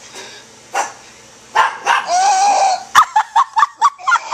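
Dog-like barking and yelping: a few separate barks, then a long wavering cry, then a quick run of short high yips, about six a second, from about three seconds in.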